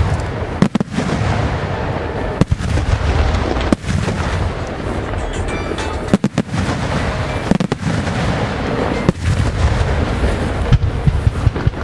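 Aerial firework shells bursting in a continuous barrage: a dense rumble of booms and crackle, with sharp louder reports every second or two and a quick run of pops near the end.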